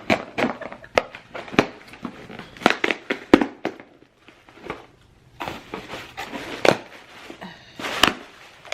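Cardboard box and packaging being handled and opened: irregular sharp crackles, clicks and rustles, with a quieter pause about halfway through.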